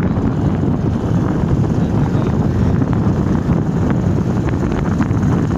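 Steady rush of wind buffeting a phone microphone carried on a moving motorcycle, mixed with the motorcycles running along the road.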